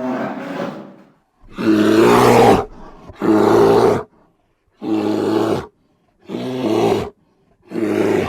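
A bear roaring: six short roars, each about a second long with brief pauses between, the second the loudest.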